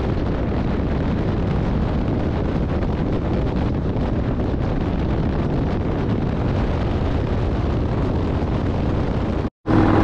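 Steady wind noise buffeting the microphone of a motorcycle riding at speed, a dense low rumble with no distinct engine note standing out. The sound cuts out for a split second near the end.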